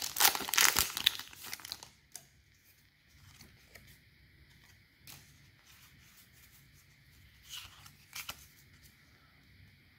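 Foil Pokémon booster pack wrapper tearing and crinkling as it is ripped open, loud for the first two seconds. Then faint rustles and slides of trading cards being pulled out and handled, with a couple of slightly louder card sounds near the end.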